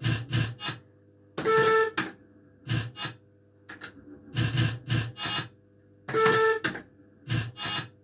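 Astra Riverboat Gambler fruit machine playing spin after spin: the three mechanical reels whirr and clunk to a stop in quick clicking clusters. Twice the machine sounds a short electronic beeping jingle of about half a second.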